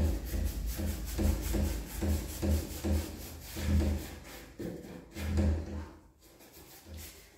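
Round paintbrush scrubbing chalk paint onto a wooden cabinet panel in short, repeated strokes, about two a second, working the paint into a textured finish. The strokes die away near the end.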